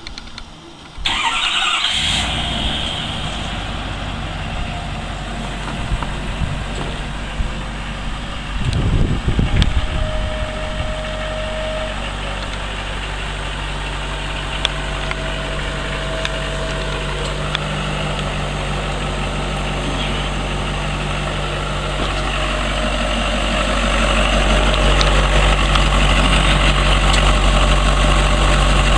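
2013 Ford F250's 6.7-litre Power Stroke V8 turbo-diesel starting about a second in, then idling steadily. It grows louder near the end, heard up close beneath the front of the truck.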